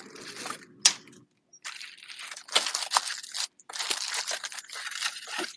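Plastic wrapping crinkling and rustling as a product is handled in its cardboard box, with one sharp click about a second in and a brief pause before the crinkling picks up again.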